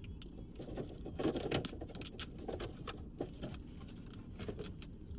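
Plastic toy wrapping crinkling and crackling as it is pulled open, in quick irregular crackles.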